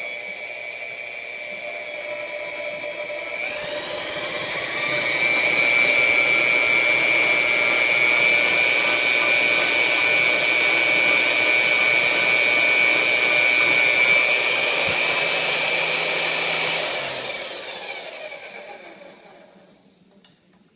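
Milwaukee 4203 magnetic drill press motor running with a steady whine. It speeds up about three seconds in, holds at the higher speed, then slows and winds down to a stop near the end.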